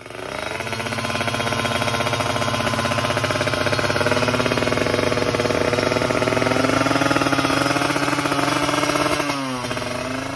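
Kawasaki Ninja motorcycle engine with a twin-silencer exhaust, revved hard and held high for several seconds with the pitch slowly creeping up. Near the end it drops back down.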